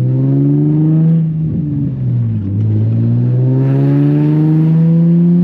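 Nissan 350Z's V6 engine and exhaust, running on test pipes, pulling under acceleration. The revs climb, drop at a gear change about two seconds in, then climb steadily again.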